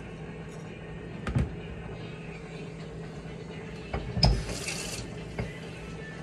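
A metal frying pan knocking and scraping on gas-stove grates: a light knock, then a louder clank about four seconds in with a brief scrape after it, over a steady low hum.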